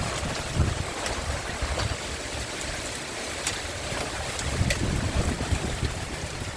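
Hailstorm: a steady rush of falling hail with scattered sharp clicks of single hailstones striking hard surfaces, and low buffeting of wind on the microphone now and then.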